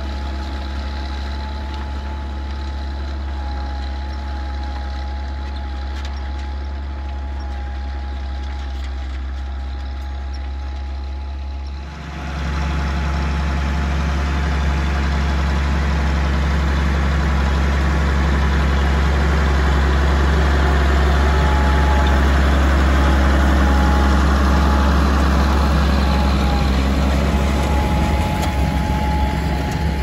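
Massey Ferguson 1250 tractor's six-cylinder diesel engine running steadily under load while pulling a four-furrow reversible plough. After a cut about twelve seconds in it is louder, growing as the tractor comes close and passes, then easing a little near the end.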